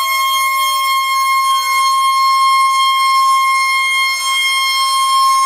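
A loud, steady high-pitched tone of the alarm or siren kind, with fainter tones gliding slowly downward beneath it.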